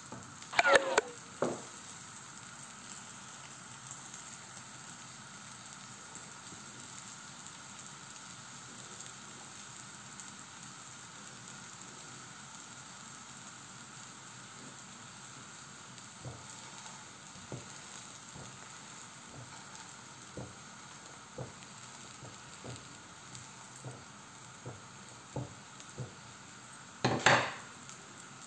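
Oil sizzling steadily under a makki ki mooli paratha (maize-flour radish flatbread) shallow-frying in a black pan, with scattered small pops of spitting oil through the second half. A spatula clatters against the pan about a second in, and there is another brief clatter near the end.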